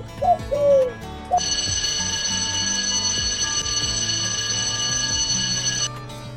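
An alarm-clock-style ring of several high tones, starting about a second and a half in and held steady for about four and a half seconds before it cuts off, over background music. A few short falling calls come in the first second.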